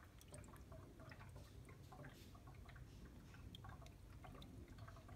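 Faint trickle of solvent engine flush poured from a bottle into the oil filler neck of a Toyota 1JZ turbo engine, with the engine switched off.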